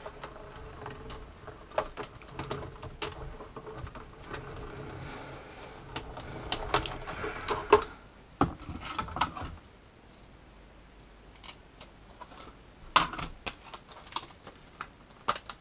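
Cuttlebug die-cutting machine being hand-cranked: the plate sandwich with a cutting die and card runs steadily through the rollers for about eight seconds. After that come a few separate light clicks and knocks of the plates being handled.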